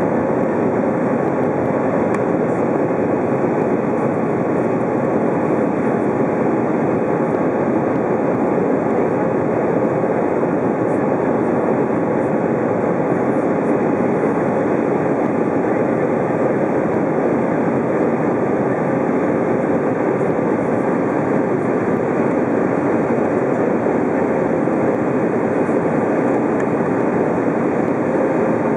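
Steady cabin noise inside an Airbus A320 climbing after takeoff: the jet engines at climb thrust and the rush of air past the fuselage, an even, unbroken drone.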